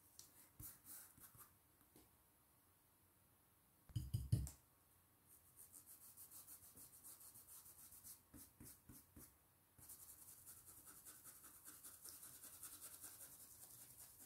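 Stencil brush working paint through a plastic stencil onto fabric: faint scratchy strokes, about four or five a second, becoming faster and denser over the last few seconds. A single dull knock about four seconds in.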